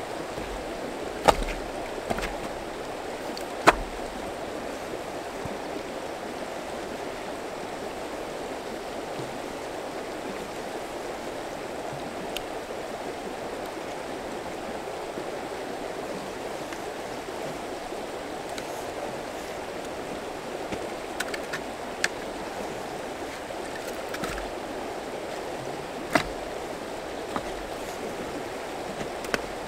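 A river rushing over rocks in a steady wash, with a few sharp knocks of firewood being set down and handled; the two loudest come in the first few seconds, with fainter ones later.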